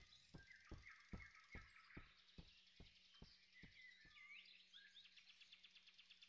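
Near silence: faint forest ambience with bird chirps, and a faint regular ticking, about two and a half ticks a second, that fades away over the first four seconds.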